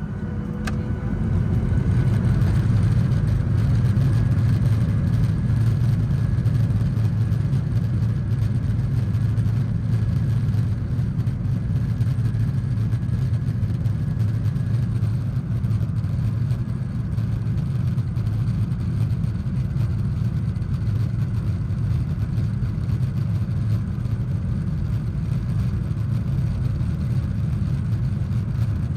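Jet airliner's engines at takeoff power: the noise rises over the first couple of seconds, then settles into a loud, steady, low rumble.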